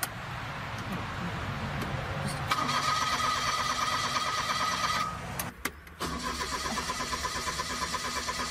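Car starter motor cranking the engine in long tries, a rapid even whirring pulse with a whine, cut off by a short break a little past halfway and then cranking again. The engine does not catch.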